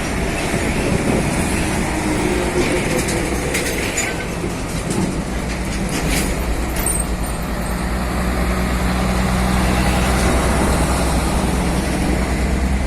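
Heavy diesel truck engine running as a convoy truck drives past, its low drone growing louder in the second half. A few sharp rattles or clanks come in the first half.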